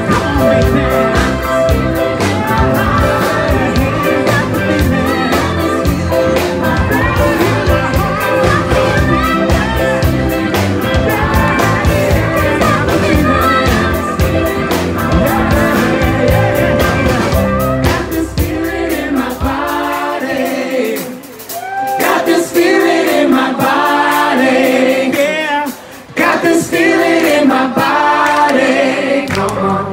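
Live band playing with singing. About two-thirds of the way through, the bass and drums drop out and the voices carry on over the lighter instruments.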